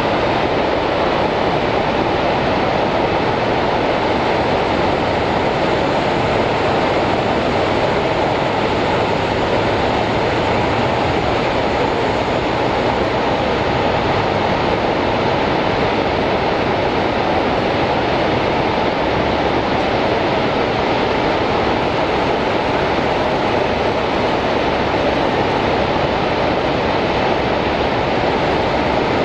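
Steady roar of the American Falls at Niagara, a huge volume of water plunging onto rocks: a constant, even rush with no breaks.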